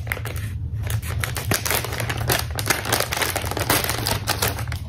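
Scissors snipping through a thin plastic bag, with the plastic crinkling as it is handled; a quick, irregular run of snips and crackles.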